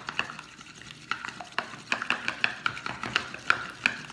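A spoon stirring an egg-white and baking-soda paste in a bowl, clinking and scraping against the sides about three to four times a second.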